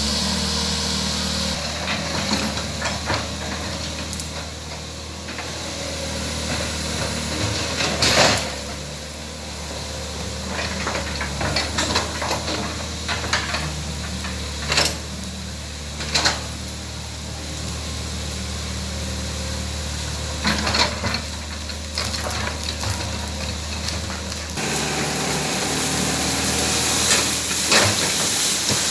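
Excavator's diesel engine running steadily under load, with a series of sharp knocks and cracks scattered through it, the loudest about eight seconds in.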